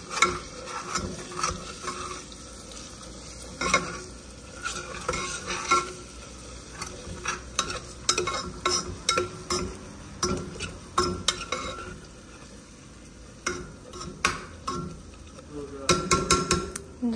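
Metal spoon scraping and clacking against a pressure cooker while onions, whole spices and ginger-garlic-chilli paste are stirred and fried in oil, with a steady sizzle underneath; the stirring pauses briefly about twelve seconds in. This is the bhuna stage, frying the masala until the oil separates.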